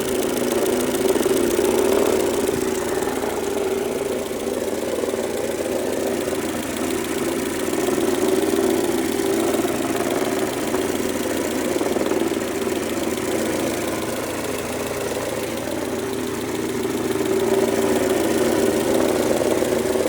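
Mercedes-Benz A140's 1.4-litre four-cylinder petrol engine running steadily, with a drone and a fast, even ticking on top. It is a noise from the front of the engine that came on suddenly, and the owner fears it means serious damage.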